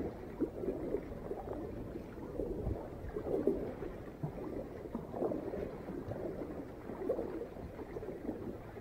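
Water gurgling and lapping around a kayak's hull as it is paddled, with irregular splashy surges about once a second.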